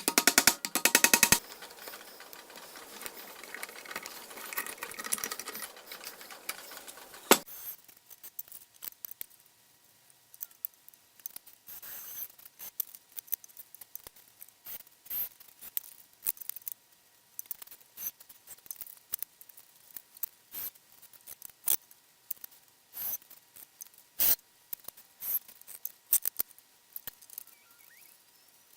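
A brief rapid rattle, then several seconds of noise ending in a sharp click, followed by scattered light clicks and taps from handling and working pallet wood and tools.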